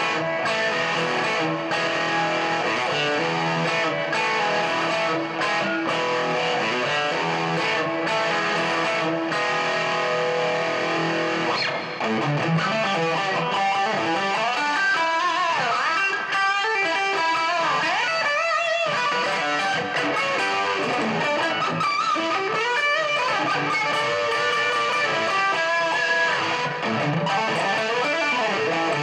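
Career Les Paul electric guitar played through distortion. It plays held chords and notes for about the first twelve seconds, then a lead line with string bends and vibrato.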